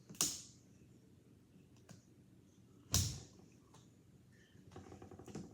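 Two sudden sharp knocks about three seconds apart, each dying away quickly, with a few faint clicks in between.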